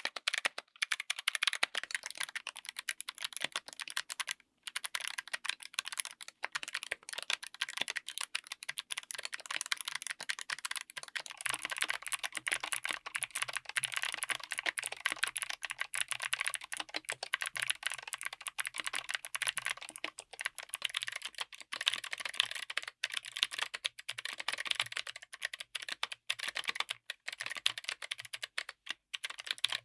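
Fast, continuous typing on a mechanical keyboard fitted with clicky switches, a dense run of sharp clicks. About eleven seconds in the sound changes character and a faint low hum enters, as a new recording, likely the next switch, begins.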